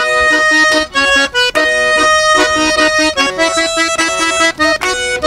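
Button accordion playing the instrumental opening of a vallenato song: a melody of long held notes over quick, evenly repeated bass notes.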